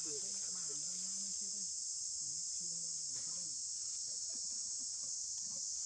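Steady high-pitched insect chorus, an unbroken shrill hum, with faint voices underneath.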